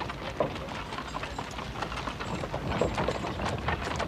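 Donkey hooves clip-clopping as a stream of donkey carts passes, an irregular clatter of many quick, overlapping clicks.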